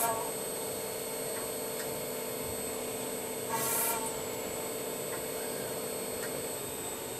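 Crankshaft milling machine cutting: large toothed disc cutters machine a spinning crankshaft, giving a steady grating machining noise with a constant tone under it. A brief louder burst comes about three and a half seconds in.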